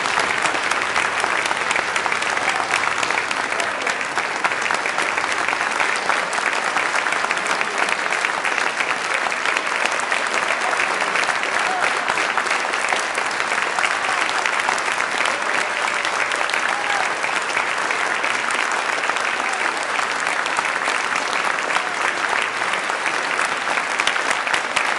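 Audience applauding with steady, dense clapping.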